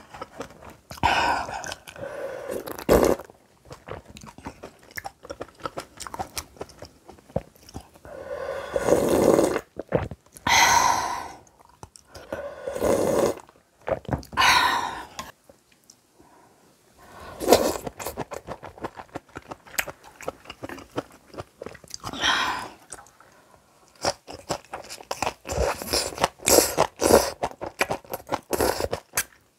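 Close-miked eating of noodles and kimchi: wet chewing and crunching of kimchi with many sharp crunchy clicks, densest near the end, broken by several drawn-out slurps of noodles lasting about a second each.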